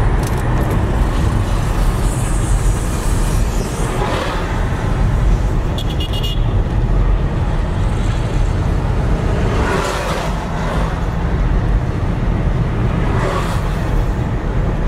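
Road noise of a car driving in highway traffic: a steady low rumble of engine and tyres, with a few brief swells of louder noise along the way.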